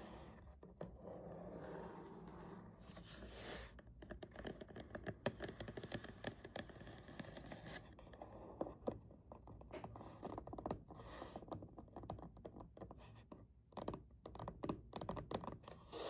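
Soft fingertip and nail taps and scratches on a cardboard box, at first a few scratches, then a long run of quick light taps.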